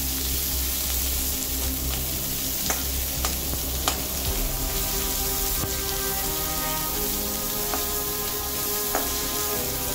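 Chopped onions, ginger and garlic sizzling in oil in an aluminium kadhai while being fried until brown. A metal slotted spatula clicks and scrapes against the pan a few times as they are stirred.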